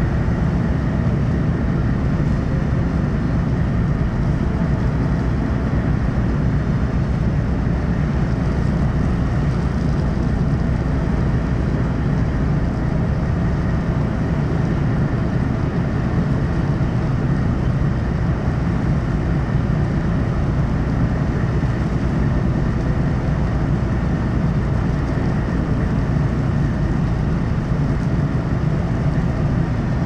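Steady low rumble of ship engines as a harbour tugboat alongside pushes a large car ferry round during its departure, heard from the ferry's open deck.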